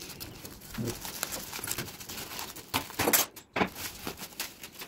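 Plastic bubble wrap crinkling and rustling under fingers as it is picked at and pulled open, a dense run of small crackles with a few louder ones about three seconds in.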